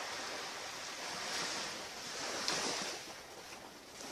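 Surf washing on a beach, swelling and easing, with a brief sharp click about two and a half seconds in.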